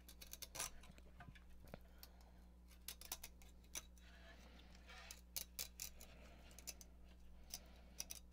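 Hobby knife cutting through the stiff fabric spider of a Kicker Hideaway subwoofer's flat aluminum-cone driver: a faint scatter of small, irregular clicks and snips. A steady low hum runs underneath.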